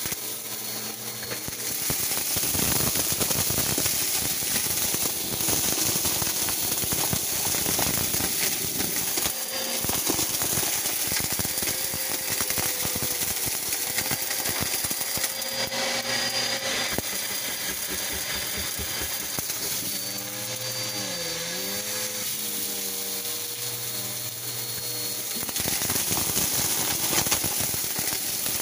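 Bissell PowerForce upright vacuum cleaner running on carpet, sucking up a loose mix of glitter, sequins and beads that rattle and crackle up into its clear dust bin over a steady motor whine.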